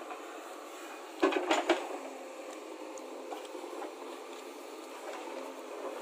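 JCB backhoe loader working its rear bucket: steady engine and hydraulic running, with a quick cluster of clanks and knocks a little over a second in.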